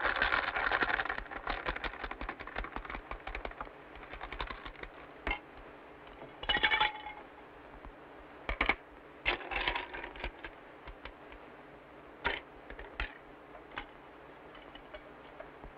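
Ice and a spoon clinking in drinking glasses as drinks are mixed: a quick run of rattling clinks for the first few seconds, then scattered single glass clinks, some briefly ringing.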